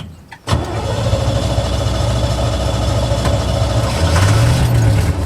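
1955 Willys Jeep engine catching about half a second in and running steadily, picking up a little near the end.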